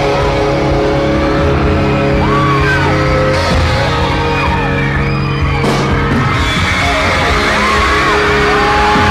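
Loud concert music with held chords, and fans screaming and whooping over it several times.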